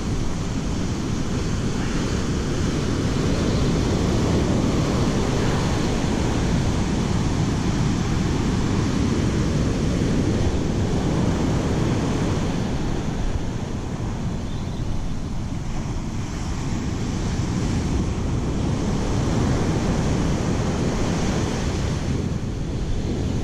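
Surf breaking and washing up a sand beach, with strong wind buffeting the microphone; the rush rises and falls slowly with the sets of waves.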